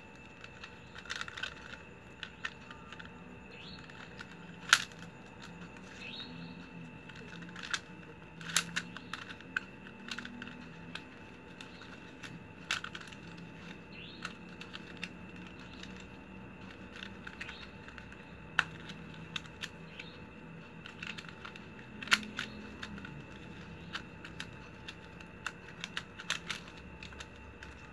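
Flat plastic strap strips being threaded and tucked through a woven mat by hand, giving irregular sharp clicks and crinkles; the loudest click comes about five seconds in and another near twenty-two seconds.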